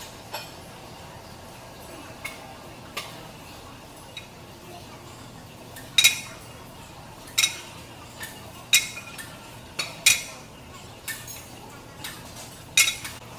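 Steel weight plates and barbell clanking in a gym: about a dozen sharp, irregular metallic clinks, the loudest about six seconds in, over a steady low hum.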